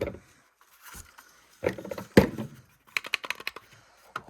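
Hard plastic clicks and knocks of alarm units being handled and set down: a few separate knocks, then a quick run of clicks about three seconds in.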